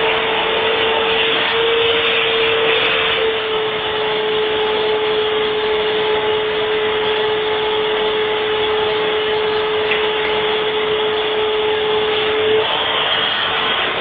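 Vacuum cleaner running steadily: a constant rush of air with a steady tone running through it.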